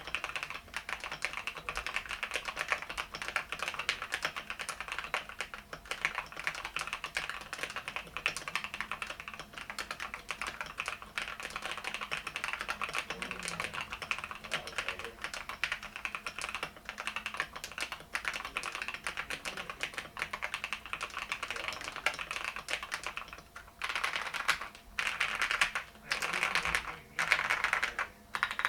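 Fast, continuous typing on a KBD67 Lite R2 mechanical keyboard with lubed and filmed Gateron Black Ink V2 linear switches, Akko ASA keycaps and a poured silicone dampener: a dense stream of keystroke clacks. Near the end the typing comes in short bursts with brief pauses between them.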